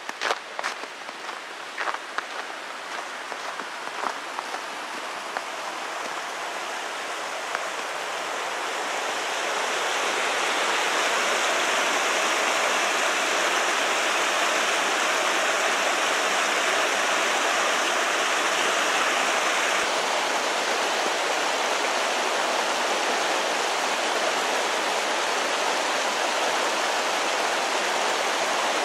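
Footsteps on a snowy road for the first few seconds, fading out as the rushing of a mountain creek grows louder. The creek then runs steadily over rocks and small cascades.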